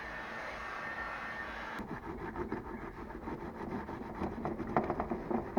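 Steady background noise, then from about two seconds in a rapid series of rubbing strokes, several a second and louder near the end. These fit a hand roller being worked back and forth to press sound-deadening mat onto a car door panel.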